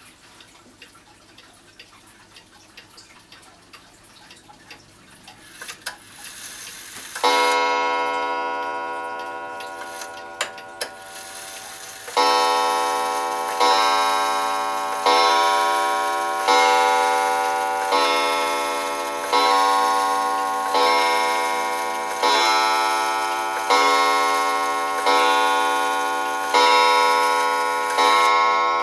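Vintage carved wooden striking wall clock: faint pendulum ticking, a few small clicks, then a single ringing strike about seven seconds in. From about twelve seconds in it strikes twelve times, about every second and a half, each blow ringing and dying away, as the hands stand at twelve o'clock.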